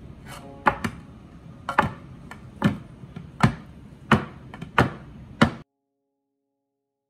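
Sharp knocks and taps of silicone muffin cups being shifted and set down on a metal baking tray, roughly one every 0.7 s, about ten in all; the sound cuts off suddenly near the end.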